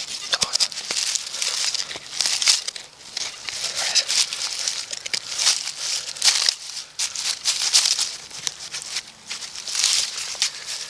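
Dry leaf litter and brush crunching and rustling in quick, irregular bursts.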